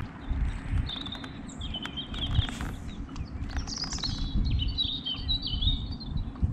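A small songbird twittering in short warbling phrases from about a second in until near the end, over a steady low rumble.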